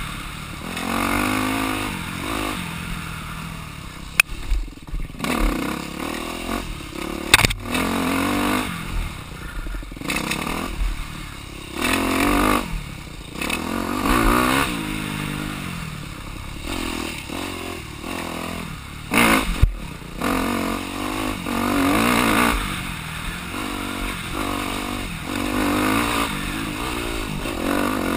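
Dirt bike engine revving up and falling back over and over as it is ridden off-road, with a few sharp knocks and some clatter along the way.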